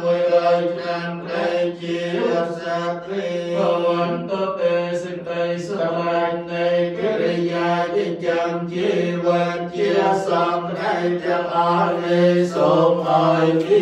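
Theravada Buddhist monks chanting Pali verses together in a steady low monotone, the syllables running on without a break.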